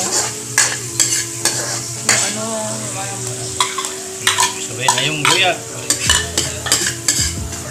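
Spatula scraping and stirring chopped onion and garlic as they sauté in oil in a wok, with a steady sizzle. The scrapes come at about two a second.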